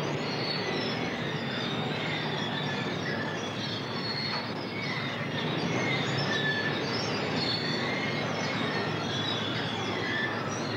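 Steady mechanical din with short, wavering high metallic squeals coming and going, like steel wheels or machinery grinding under load.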